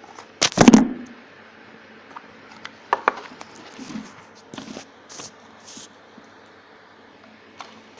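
Handling an opened cardboard box and its packaging: a loud knock with rustling about half a second in, then scattered small clicks and short rustles.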